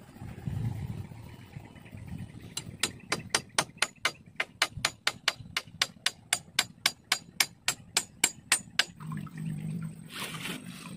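Rapid, even series of sharp knocks from a tool striking repeatedly, about four or five blows a second, starting about three seconds in and stopping about six seconds later.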